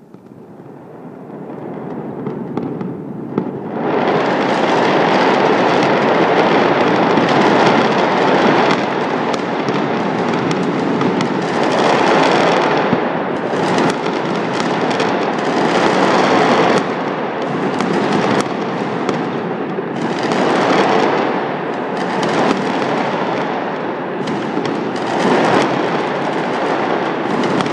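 A dense barrage of fireworks and firecrackers: a near-continuous crackle of many overlapping small bangs. It swells over the first few seconds, then stays loud, rising and falling in waves.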